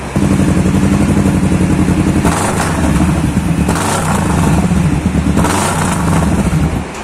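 Sport-bike engine running loudly through an aftermarket slip-on muffler held on its exhaust pipe for a sound test, revved briefly three times between steady idling.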